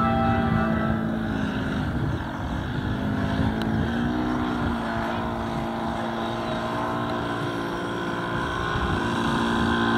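Radio-controlled aerobatic model airplane's engine running in flight. Its pitch shifts up a few seconds in and drops back down near the end as the plane is throttled through its manoeuvres.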